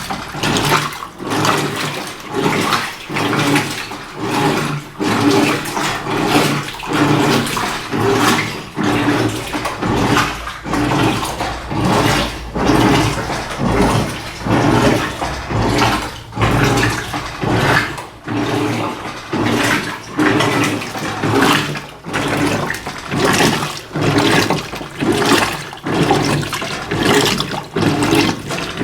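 Electrolux LF90 washing machine washing rugs in a low water level: water sloshing and churning in rhythmic surges about once a second, over a steady low hum.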